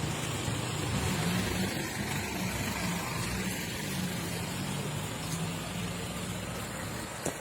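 A motor vehicle's engine running steadily, a low hum that wavers a little in pitch, with one sharp click near the end.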